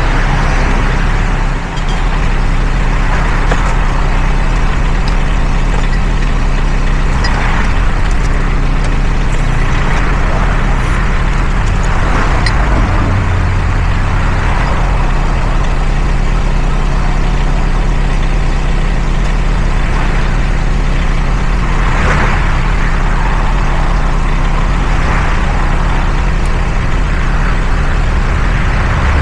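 Mini excavator's engine running steadily, with swells of louder noise every few seconds.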